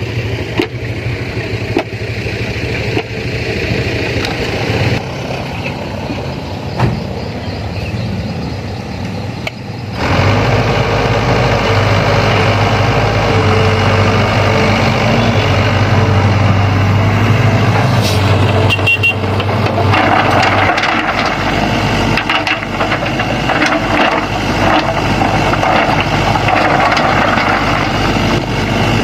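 Sany hydraulic excavator's diesel engine running, stepping up to higher, louder revs about ten seconds in as it works under load, with scattered knocks.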